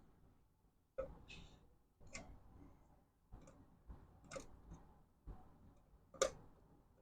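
Faint, irregular clicks and light taps, roughly one a second, from hands handling wires, connectors and small tools while fitting motorcycle wiring; the sharpest click comes about six seconds in.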